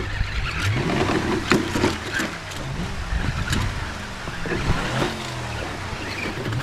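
Dubbed-in truck engine sound effect revving up and down repeatedly over the RC crawler's driving, with scattered sharp clicks and knocks.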